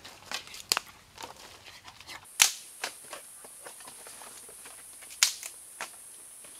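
A steady high-pitched buzz of forest insects, starting abruptly about two seconds in, with a few sharp single clicks and knocks over it, the loudest about halfway through.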